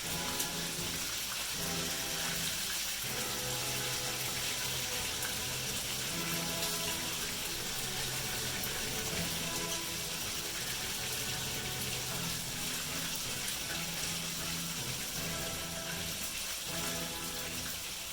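Background music with held notes, over a steady hiss of food sizzling in a hot frying pan.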